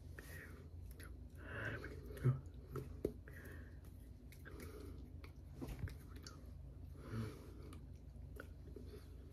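Soft mouth sounds of a person signing silently: breaths, lip smacks and tongue clicks, with light taps and rustles of hands and a bracelet, over a steady low hum.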